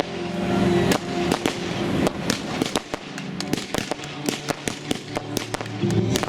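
Fireworks crackling and popping, many sharp pops a second, from low-noise effects without loud bangs, with music playing underneath.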